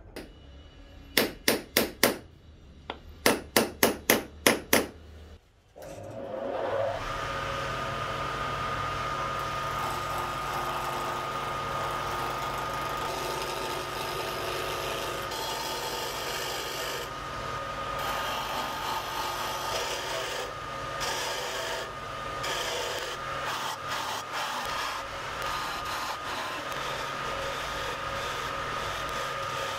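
A hammer strikes a metal punch held on a block of wood, about ten sharp blows in two quick groups. Then a wood lathe starts and runs with a steady whine while a hand gouge scrapes and cuts the spinning wooden blank, turning it into a handle.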